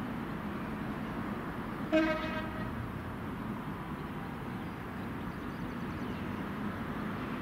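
A train horn gives one short toot, about half a second long, about two seconds in, over a steady low rumble.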